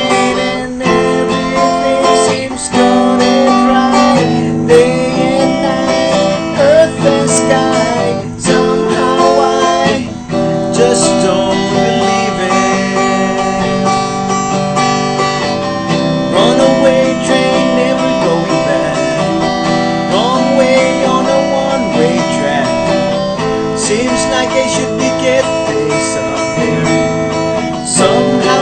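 Guitar strummed in a steady rhythm, its chords changing every second or two.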